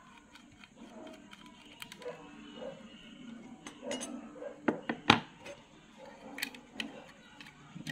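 Small metallic clicks and clinks from working a laptop hard drive's metal caddy with a screwdriver, as screws and the caddy rail are handled and set down. A quick cluster of sharper, louder clinks comes about five seconds in.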